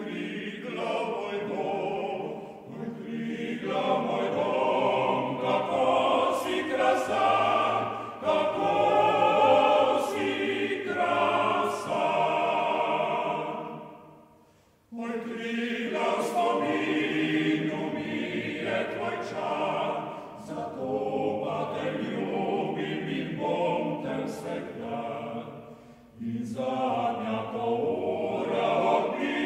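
Choir singing in long phrases, breaking off briefly about halfway through and again near the end.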